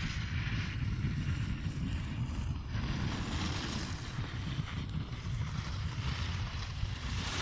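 Wind buffeting the microphone of a camera carried by a downhill skier, with the hiss of skis sliding on snow swelling and fading as the skier turns.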